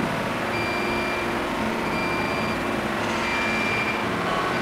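Wood CNC router running as it engraves a fibreboard panel: a steady machine noise with a high whine that comes and goes about once a second.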